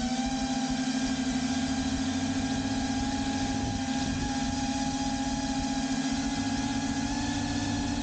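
Small quadcopter drone's electric motors and propellers running at a steady whining pitch in flight; the pitch dips slightly at the start, then holds level.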